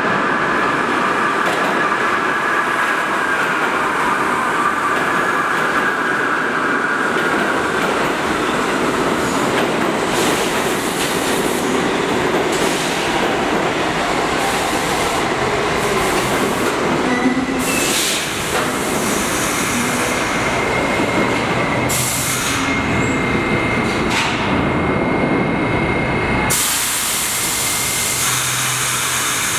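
New York City Subway R68 train pulling into an underground station and braking to a stop: a steady rumble of steel wheels on rail, with a high wheel squeal in the first several seconds and a thin steady whine from about halfway through. A few seconds before the end a hiss of air sets in.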